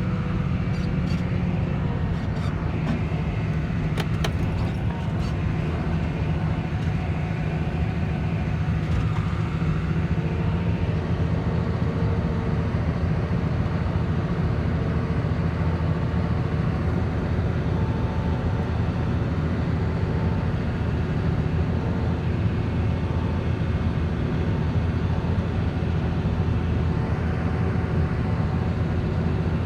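Tractor engine running steadily under load, an even drone, with a few light clicks in the first few seconds.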